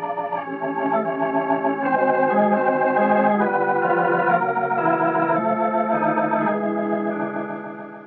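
Background music score: held, organ-like chords with a wavering tremolo, changing every half second or so and fading out near the end.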